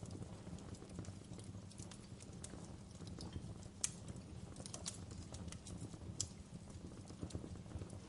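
Wood fire crackling in a fireplace: a steady low rumble of burning with irregular sharp pops and snaps of the burning logs, two louder pops about four and six seconds in.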